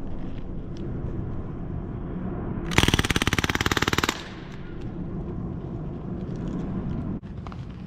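Crosman Bushmaster MPW CO2-powered BB rifle firing one full-auto burst of a little over a second, a fast rattle of shots about three seconds in.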